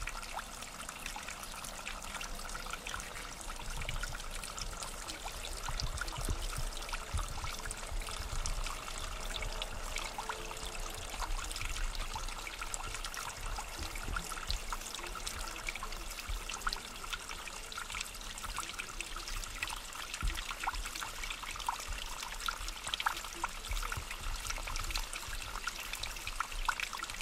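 Spring water of the young Ruhr at its source, babbling and trickling over stone steps in a small, steady flow.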